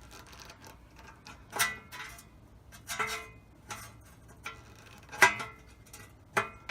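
Thin sheet-metal brake dust shield clinking and ringing as it is pried and bent with a screwdriver: four sharp metallic strikes with a ringing tail, and a few lighter clicks between them. The shield is being bent back for clearance so it stops rubbing on the brake rotor.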